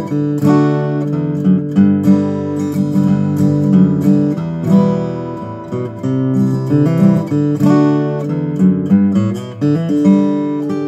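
2018 Martin OM-21 steel-string acoustic guitar played fingerstyle: a continuous run of plucked melody notes over low bass notes that ring on.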